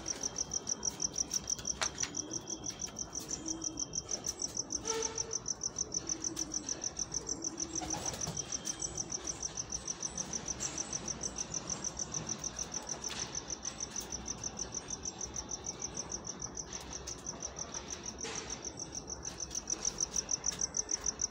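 A cricket chirping in a steady, rapid, high-pitched trill that never stops, with soft low pigeon coos, mostly in the first half.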